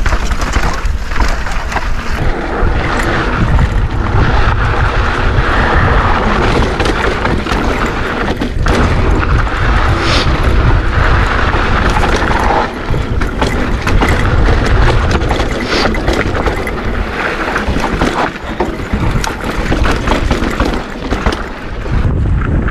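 Mountain bike riding down a dirt trail: wind buffeting the microphone and the tyres rumbling over the ground, with scattered knocks and rattles from the bike.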